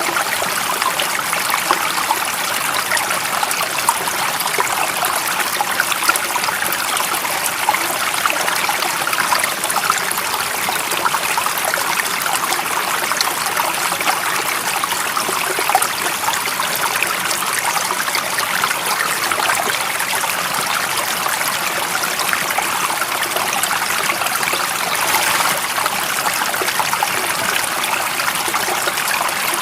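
Stream water running and trickling steadily, a continuous splashing babble with no let-up.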